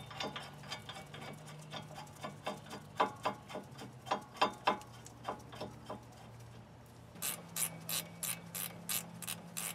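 Hand socket ratchet clicking as it runs in a brake caliper bracket bolt: an even run of sharp clicks, about three a second, starting about seven seconds in. Before that come scattered metal clicks and clinks as the new bracket and bolts are fitted.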